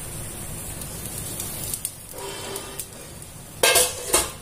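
Chatti pathiri sizzling in a non-stick pan on a gas stove as its lid comes off: a steady soft hiss, with two brief loud noises near the end.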